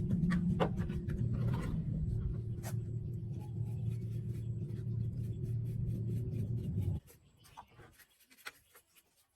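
A steady machine hum that stops abruptly about seven seconds in, followed by a few light clicks and taps.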